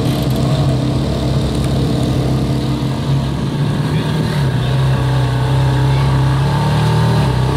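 Ferrari 430 Scuderia's V8 running at low revs as the car pulls away at walking pace, with the pitch edging up slightly as it moves off.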